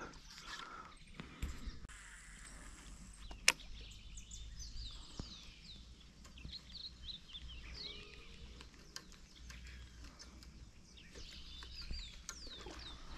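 Faint bird chirps and short calls, many in a row from about four seconds in, over faint low background noise, with one sharp click a few seconds in.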